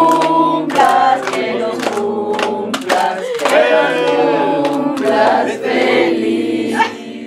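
A small group of people singing a birthday song together in Spanish, several voices at once with long held notes.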